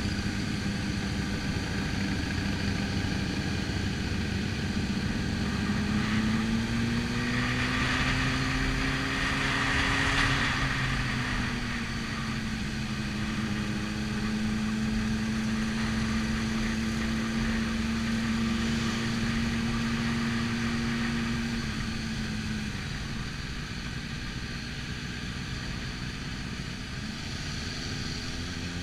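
Motorcycle engine running at low, fairly steady revs, heard from on board, with other motorcycles riding close alongside. The engine note climbs slightly about a quarter of the way in and settles, then drops near the end before picking up again.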